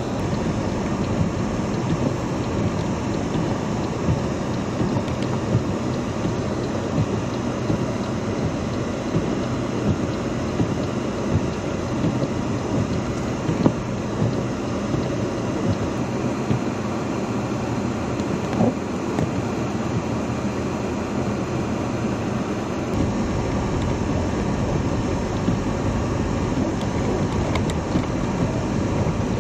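Steady road noise inside a car driving on snow-covered streets: a constant rumble of the engine and tyres on slush, with a low hum underneath.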